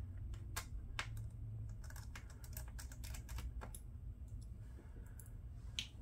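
Faint, irregular light clicks and taps of a small screwdriver working the screws that hold a laptop's LCD panel, with small knocks as the parts are handled.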